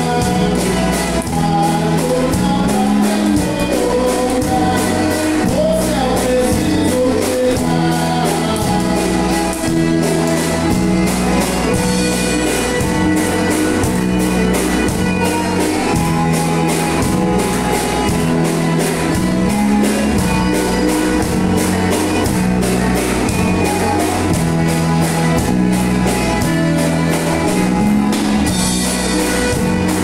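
Live band music: piano accordion, electric bass, electric guitar and drum kit playing together with a steady beat.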